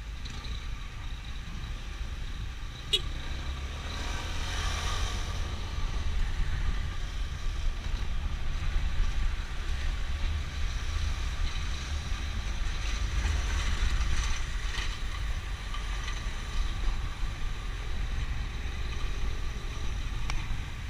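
Ride noise on a Honda SH150i scooter: a steady low rumble of wind and engine with traffic around it, growing louder after about four seconds as the scooter gets moving. A single sharp click about three seconds in.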